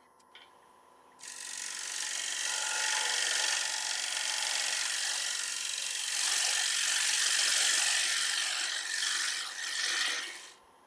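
Gouge cutting into a spinning sycamore bowl on a wood lathe: a loud, rough, continuous cutting noise that starts about a second in and stops abruptly just before the end, with a faint steady whine underneath.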